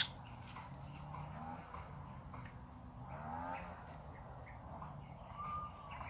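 White-breasted waterhen giving faint, low pitched calls in a few short runs, with a brief higher note near the end.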